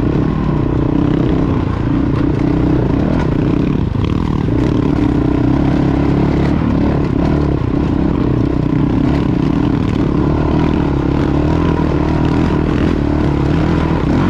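Honda CRF450-series dual-sport motorcycle's single-cylinder engine running steadily as the bike is ridden over a rocky dirt trail, with some clatter from the rough ground.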